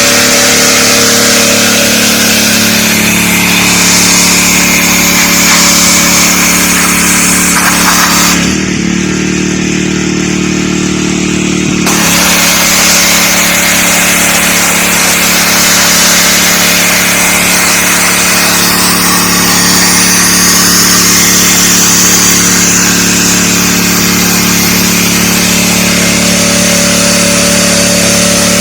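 DeWalt 3600 psi gas pressure washer running steadily, its engine under load with the hiss of the high-pressure spray. The spray stops for a few seconds about a third of the way in while the engine keeps running, then starts again.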